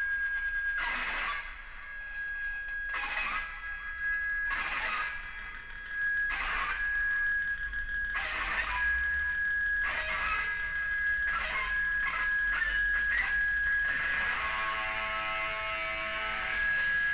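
Two electric guitars played as noise music: a steady high ringing tone over irregular sharp hits every second or so. Near the end the ringing tone breaks off and a lower pitched chord rings out.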